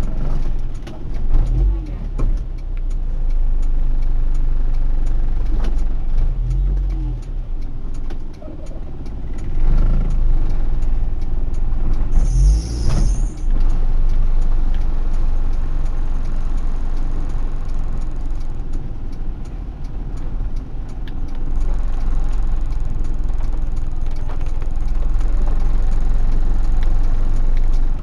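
Low rumble of a Honda Odyssey RA6 driving slowly on wet streets, heard from inside the cabin, with rain drops ticking on the windshield. A brief hiss about twelve seconds in.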